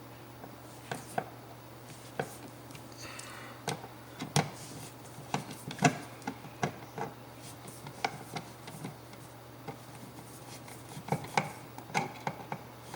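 Irregular small clicks and taps of driving an electrical outlet's mounting screws through plastic spacers into the wall box with a screwdriver, with light rubbing between.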